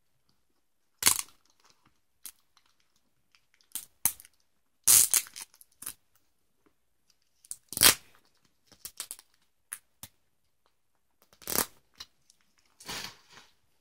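Adhesive tape being peeled and torn off a package in short, separate rips, one every second or so.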